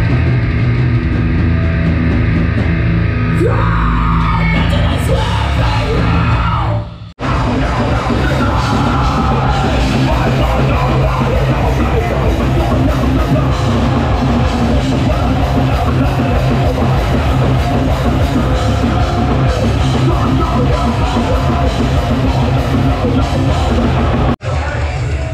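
Loud heavy rock music with vocals, cut off abruptly about seven seconds in and again near the end, where the music restarts after each break.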